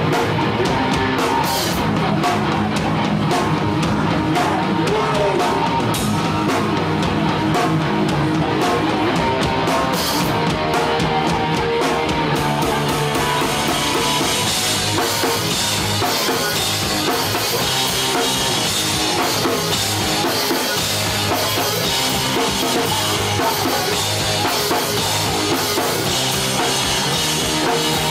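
Hardcore punk band playing live: distorted electric guitar, bass and pounding drums in one dense, loud wall of sound, turning brighter and harsher about halfway in.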